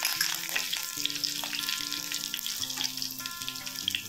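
Curry leaves and crushed garlic sizzling and crackling in hot oil in a stainless steel kadhai, stirred with a silicone spatula. The hiss is steady, with many small pops from the leaves spitting in the oil.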